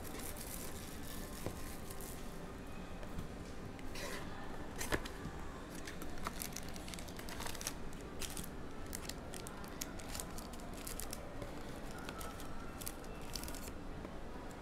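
Plastic shrink wrap being torn and crinkled off a cardboard trading-card box, then the box opened and its foil card packs handled: a string of crackles and small clicks, thickest in the second half.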